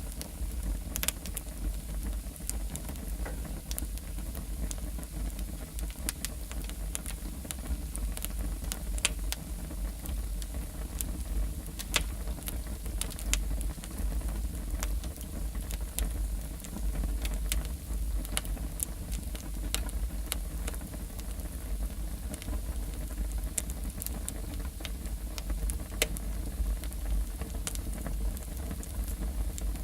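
Wood fire burning in a fireplace: a steady low rumble of flame with frequent sharp crackles and pops from the logs.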